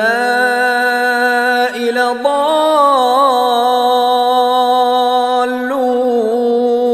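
Male voice chanting a Quran verse in melodic tajwid style, drawing out long sustained vowels with wavering ornaments, with short breaks about two seconds in and near six seconds.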